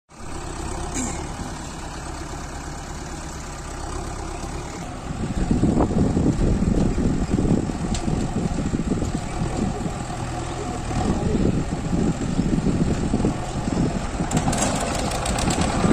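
Diesel engine idling steadily, then running louder and rougher from about five seconds in as a backhoe loader pushes a Mahindra 255 tractor with a loaded trolley to bump-start it without a battery.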